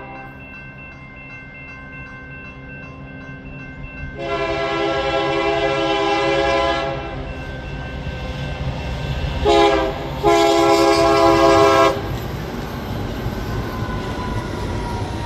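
Grade-crossing warning bell ringing steadily, then a BNSF diesel locomotive's air horn sounds a long blast about four seconds in, followed by a short blast and another long blast. After the horn, the locomotive's rumble grows as it reaches the crossing.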